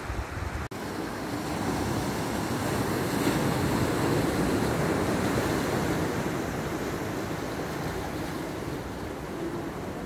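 Sea water washing against shoreline rocks in a continuous rush that swells to its loudest around the middle and then eases off.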